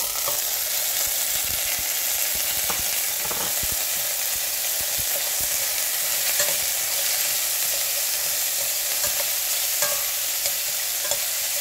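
Green peas hitting hot oil in a stainless steel pan with fried onions: a sudden loud sizzle that starts as they go in and keeps frying steadily, with the peas stirred and scraped around the pan.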